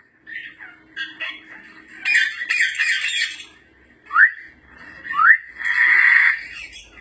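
African grey parrot calls: harsh squawks about two seconds in and again near the end, with two short rising whistles between them and softer chatter before.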